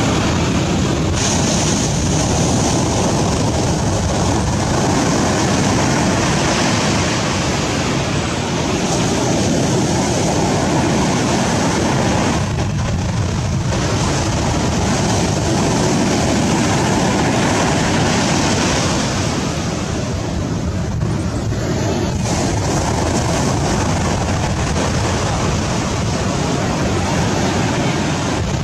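Steady, loud rushing of wind and water, with wind buffeting the microphone.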